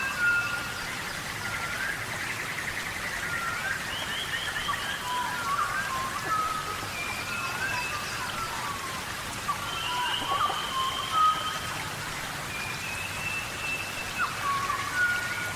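Steady rainforest rain, with many short whistled calls, rising and falling notes and a few quick trills over it, typical of birds.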